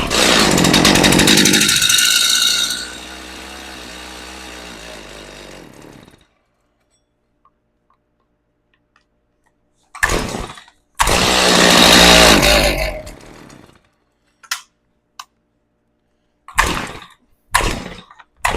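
Stihl MS270 two-stroke chainsaw firing on the starter pull and running briefly before dying, twice: the first run is loud for about three seconds, then drops and stops about six seconds in; the second catches about ten seconds in and dies after a couple of seconds. Several short bursts follow near the end. The saw is running off the old gas left in its carburettor after a fuel filter and plug change.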